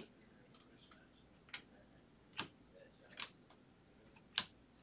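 Baseball trading cards flicked one at a time through a hand-held stack: five short sharp snaps spaced about a second apart, the last the loudest.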